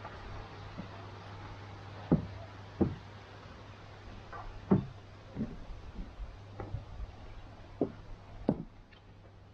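Footsteps on a wooden deck: about seven dull, irregularly spaced knocks over a low steady hum.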